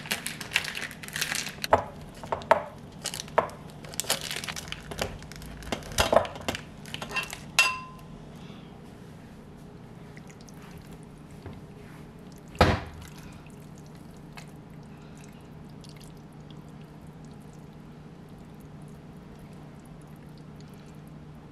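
Cookware and glassware being handled in a kitchen: a quick run of clinks and knocks over the first eight seconds, then one sharp knock about halfway through, over a steady low hum.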